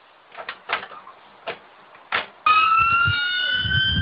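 A few faint knocks, then about two and a half seconds in an ambulance siren cuts in suddenly, a wail rising slowly in pitch, over the low rumble of the moving vehicle.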